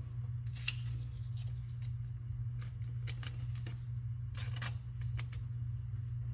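Pokémon trading cards being handled and moved about: scattered light clicks and slides of card stock, over a steady low hum.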